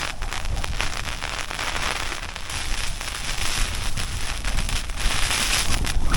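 Heavy rain and gusting wind on the silnylon fabric of an MLD Duomid pyramid tent, heard from inside: a dense rattle of drops hitting the fabric over a low wind rumble that swells louder near the end.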